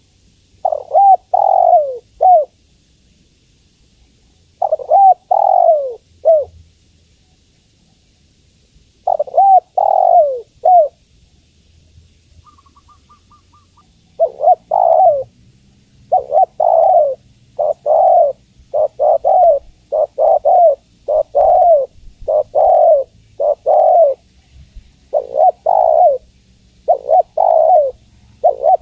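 Spotted dove cooing: three short phrases of a few coos each, spaced about four seconds apart, then from about halfway through a dense run of coos with hardly a pause. The call is offered as a female's call, used to lure males.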